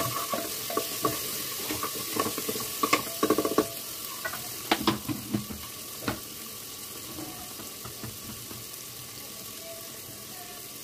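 Tomato-onion masala sizzling as it fries in a pressure-cooker pot while a wooden spatula stirs it, with irregular scrapes and knocks against the pot for about the first six seconds. After that the sizzling goes on alone, more quietly.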